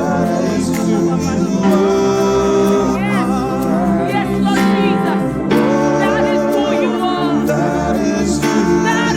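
Gospel worship music played live by a worship band, with voices singing over sustained chords.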